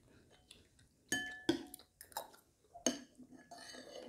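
Metal spoon clinking and scraping against a bowl while porridge is scooped, a few short clinks with a brief ring starting about a second in.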